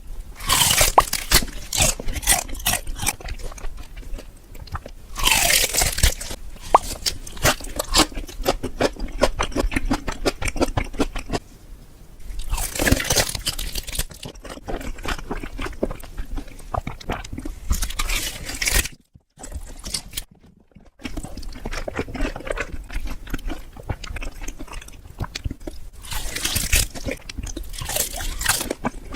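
Close-miked eating: crunchy food being bitten and chewed, with dense crackling and several louder crunching bites, and two brief silent gaps in the middle.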